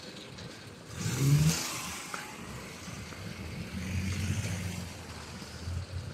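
A car driving past. Its noise swells about a second in and fades, and a low engine hum comes up again around four seconds in.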